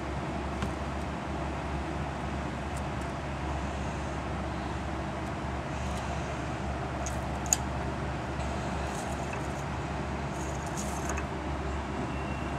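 Steady hiss over a low hum, with a few faint clicks and one sharp tap a little past halfway.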